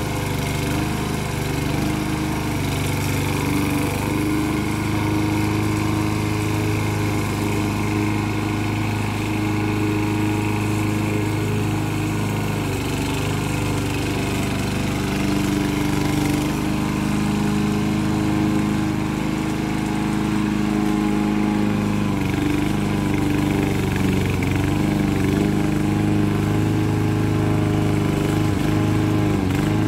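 Homemade radio-controlled lawn mower's engine running steadily as it drives and cuts grass, with a few brief dips in pitch.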